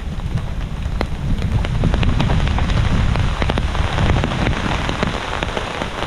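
Steady rain with wind: many separate drops ticking sharply over a dense rain hiss. A low wind rumble swells through the middle.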